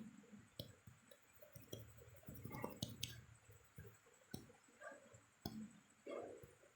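Faint, scattered clicks and soft short rustling sounds, irregular and a second or so apart.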